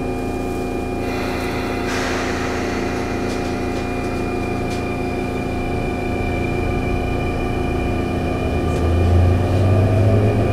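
Sotetsu 9000 series electric train running, heard from inside the passenger car: rolling noise with the steady hum and whine of its Hitachi IGBT VVVF inverter and traction motors. Near the end a low tone and a higher whine rise in pitch and the sound grows louder.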